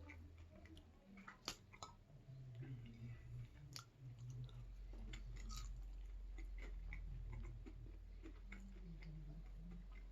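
A person chewing food close to the microphone, with scattered small mouth clicks. A steady low hum comes in about four seconds in.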